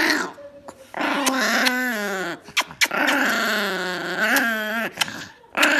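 Chihuahua snarling with its teeth bared: long, wavering growl-whines, one about a second long and one about two seconds long, with a short one at the start and another beginning near the end.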